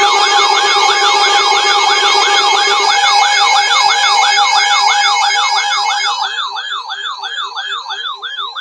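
Electronic siren-style alert sound, a rapid up-and-down yelping sweep repeating about three times a second over steady tones. Some of the steady tones drop out partway through, and the siren cuts off suddenly near the end.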